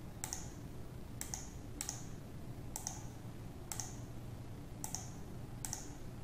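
Computer mouse button clicking faintly about seven times, roughly once a second, while drop-down lists are opened and entries picked.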